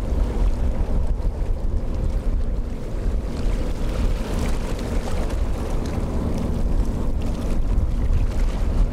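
Strong wind buffeting the microphone, a loud, uneven low rumble, over a faint steady drone.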